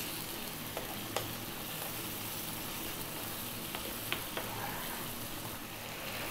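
Soy and oyster sauce sizzling steadily as it reduces and starts to thicken around fried fish and mushrooms in a frying pan, with a few light clicks of a wooden spatula stirring against the pan.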